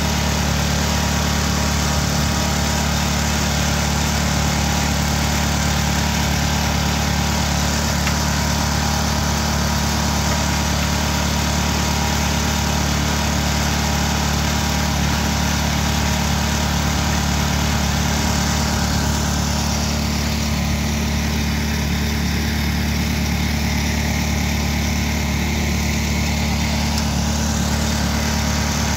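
Motor-driven grain mill running steadily while grinding finger millet into flour: a constant machine drone with a steady low hum. Its higher tone shifts slightly about twenty seconds in, then settles back.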